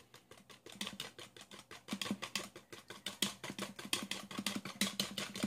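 Stirring a thin sauce in a small plastic tub, the utensil clicking and scraping against the sides in a rapid, uneven run of clicks that picks up about a second in.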